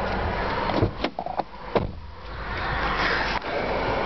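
A few clicks, then the climate-control blower fan of a 2004 Toyota Highlander coming on about halfway through and rising to a steady rush of air as the air conditioning is switched on.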